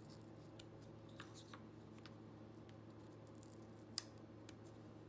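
Faint scrapes and small clicks of a 1/8-inch chisel cleaning out a sawn slot in a thin wood strip, with one sharper click about four seconds in.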